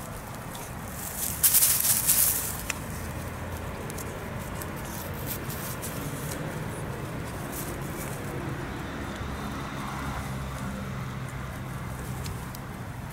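Dry grass rustling and crackling as a kitten rolls and scrambles on it while batting at a cat-teaser toy, loudest in a short burst about a second and a half in.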